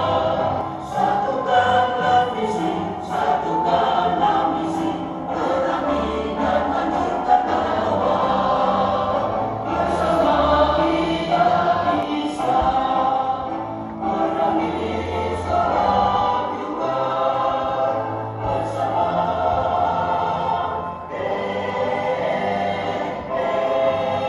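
Large choir of women singing a march song together, phrase after phrase with short breaths between.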